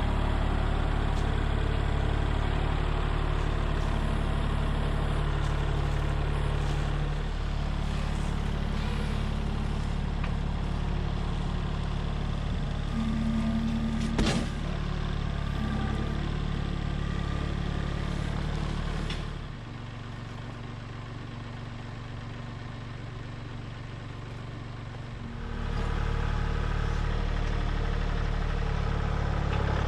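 Gasoline engine of a portable band sawmill running steadily; about two-thirds of the way through it drops to a quieter, lower level for about six seconds, then comes back up. One sharp knock about halfway through.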